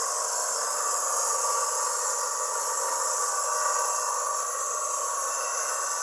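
Homemade electric coconut grater, driven by a salvaged water-pump motor, running steadily with a constant whirring and a strong high hiss.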